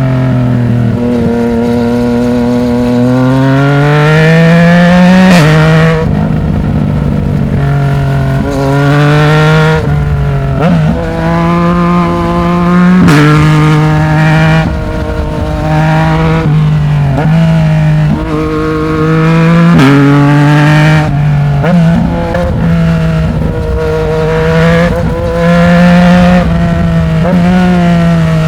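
Yamaha MT-09's three-cylinder engine through a Black Widow aftermarket exhaust under way, with no wind noise. The note climbs under acceleration and drops sharply at each gear change, again and again, with some longer steady stretches between.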